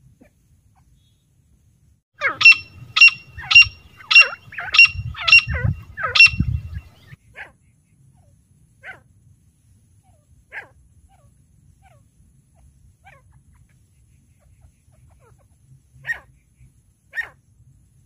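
Female grey francolin calling: a quick series of about seven loud, sharp, high calls about half a second apart, then single softer notes every second or two. A low rumble sits under the last of the loud calls.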